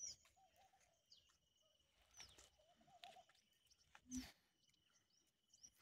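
Faint outdoor birdsong: a few short, high chirps and some low warbling notes, with a faint steady high tone. A soft low note sounds about four seconds in.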